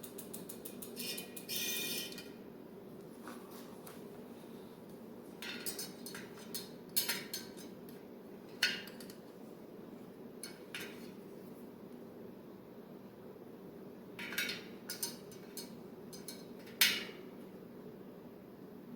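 Bicycle hub ratchet ticking for about two seconds as the wheel spins, then scattered sharp metal clinks of a spoke wrench against spokes and nipples, the loudest near the end, over a steady low hum.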